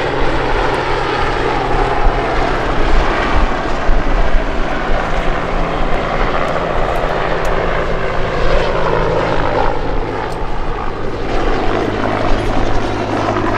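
Historic Westland military helicopters flying a display pass: a loud, steady drone of engines and rotors, with a low hum and a pitch that shifts as they pass.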